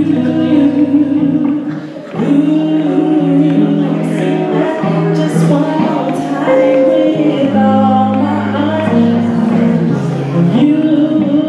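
A woman singing live into a handheld microphone over a sustained instrumental accompaniment, with a short break between phrases about two seconds in.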